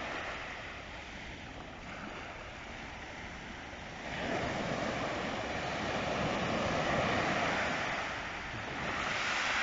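Small sea waves breaking and washing up a shingle beach. The surf swells about four seconds in, eases off, then builds again near the end.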